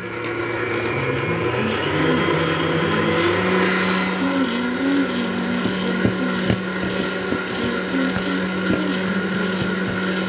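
An electric mixer motor running, climbing in pitch over the first few seconds as it speeds up, then holding a steady hum, with a few light clicks.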